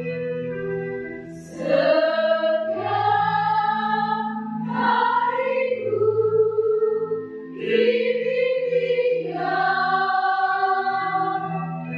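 A women's choir sings in several parts, in long held phrases with short breaks for breath about a second and a half and seven and a half seconds in.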